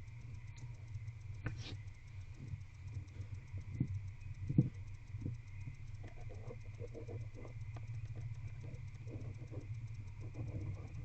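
Barn owl shuffling and scratching in a wooden nest box, with many small scrapes and a single knock about four and a half seconds in, over a steady low hum.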